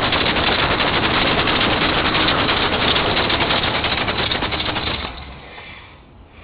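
A Dodge Ram van's 5.2-litre V8 running with its serpentine belt squealing loudly. About five seconds in the engine is shut off and the sound dies away. The squeal comes from a pulley on the grooved side of the belt, suspected to be the tensioner pulley with dried-up bearings.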